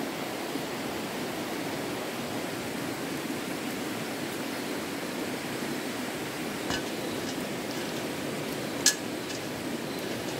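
Steady rush of a running stream, with two sharp clicks, the louder one near the end.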